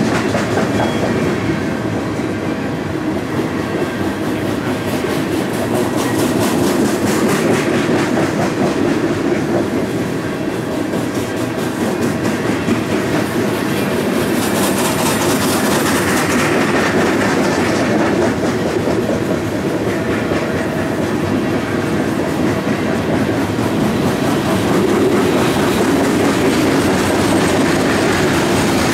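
Freight train's open-top hopper cars rolling past close by: a steady rumble of steel wheels on rail with a regular clickety-clack as the wheels cross the rail joints.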